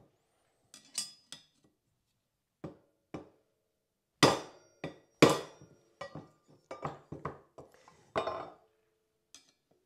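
A hammer striking an old flat-blade screwdriver wedged under a bicycle fork's steel headset crown race: over a dozen sharp metallic taps, each with a short ring, at an irregular pace. The two hardest blows come around the middle, followed by a quicker run of lighter taps. This is the crown race being knocked loose from its tight press fit on the fork steerer.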